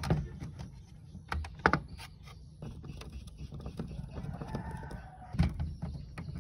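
Screwdriver and handled parts clicking and knocking against the metal and plastic chassis of a cassette deck as its screws are taken out, with sharp knocks near the start, around the middle and about five seconds in. A drawn-out animal call sounds in the background at about four seconds, lasting about a second.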